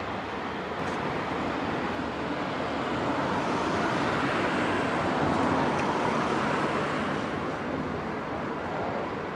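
Steady rushing road-traffic noise, with one vehicle swelling up and fading away around the middle.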